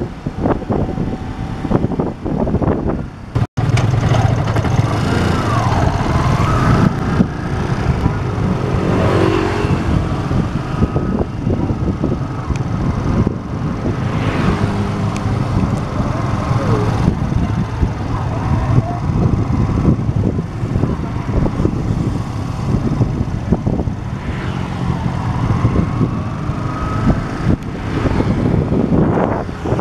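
Motorcycle riding along a city street, heard from on board: engine running with steady road and wind noise and passing traffic. The sound drops out for a moment a little over three seconds in.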